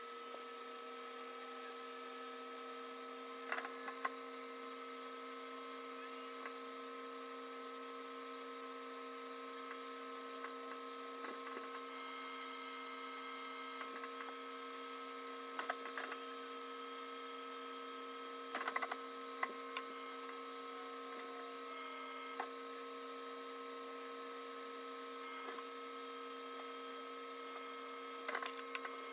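A steady, unchanging hum of several held tones, with a few faint clicks and taps scattered through it.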